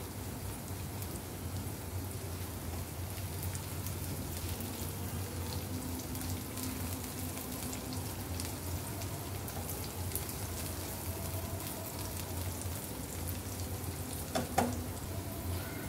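Sliced onions, chillies and panch phoron seeds frying in oil in a nonstick wok, a steady sizzle with fine crackling, stirred with a silicone spatula. A steady low hum runs underneath, and there is one sharper knock near the end.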